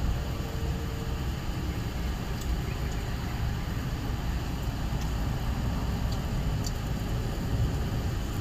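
A steady low background rumble, with a few faint light ticks now and then.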